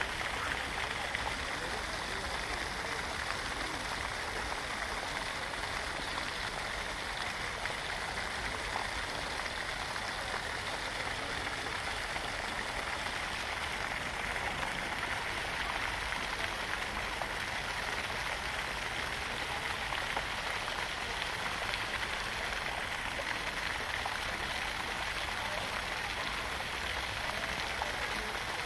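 Steady rush of splashing water, an even hiss that holds at one level throughout.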